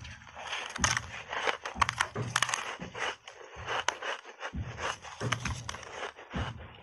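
Chunks of purple ice coated in thick milk powder bitten and chewed close to a clip-on microphone: a dense run of sharp crunches and cracks.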